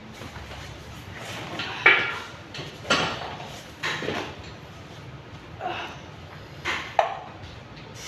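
Iron dumbbells clanking and knocking as they are lifted and handled: about half a dozen sharp metal clanks, roughly a second apart, some with a short ring.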